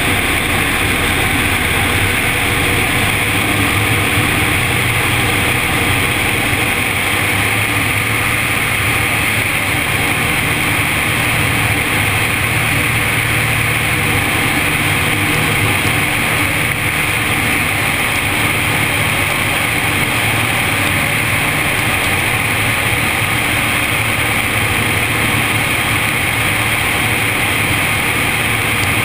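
Zenair CH 701 light aircraft's engine and propeller running steadily in flight, heard from inside the cabin with a constant rush of airflow noise.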